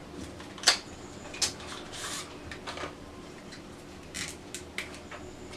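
Scattered light clicks and short rustles of a small cosmetics package, a highlighter duo and its packaging, being handled. The loudest is a sharp click under a second in.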